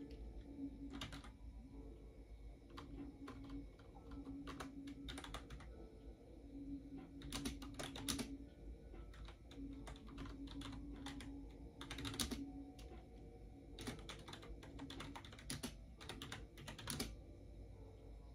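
Typing on a computer keyboard: quick key clicks in irregular bursts with short pauses between them.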